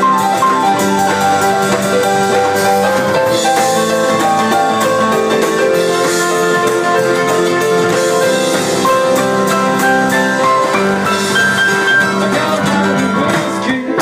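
Live band music led by an electronic keyboard playing a bright melodic line of notes, with drums behind it.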